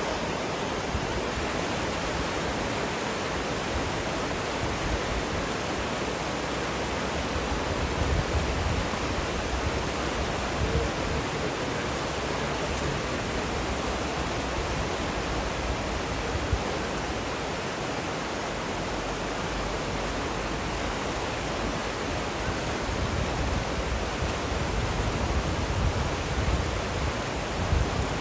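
Steady rush of a fast mountain river's rapids, with low rumbles now and then.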